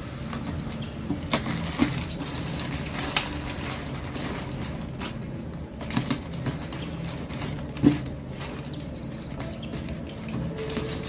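Plastic mailer bag and clear packing tape crinkling and rustling as a parcel is torn open by hand, with scattered sharp crackles, the loudest about eight seconds in.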